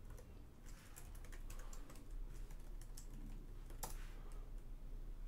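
Computer keyboard being typed on: scattered faint keystrokes, with a sharper key click about four seconds in.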